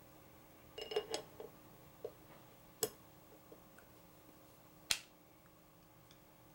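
Small clicks and taps of folding-knife parts being fitted together by hand as a Cold Steel Recon 1's handle and lock parts go back together. A cluster of light clicks about a second in, a sharp click near three seconds and the loudest, sharpest click near five seconds.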